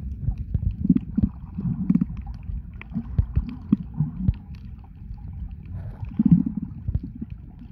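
Muffled underwater water noise heard through a submerged camera: a low rumble of moving water with gurgles swelling up now and then and many scattered sharp clicks.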